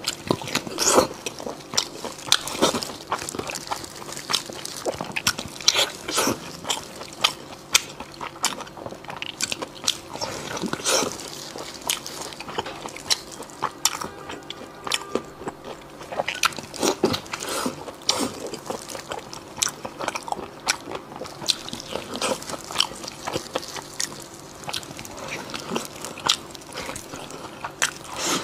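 Close-miked eating: biting into and chewing a lettuce wrap filled with saucy braised meat. Irregular crisp crunches and mouth clicks come every fraction of a second.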